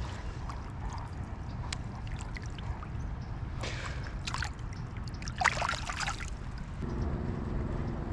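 Water splashing in two short bursts a few seconds in as a freshly caught bass is let go back into the water, over a steady low rumble of wind on the microphone. A low steady hum comes in near the end.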